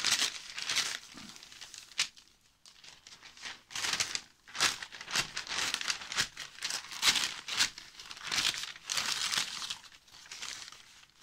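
Newspaper crinkling and tearing in irregular bursts as a wicker-based decoration, stuck to it with glue, is peeled off, with a quieter pause about two seconds in.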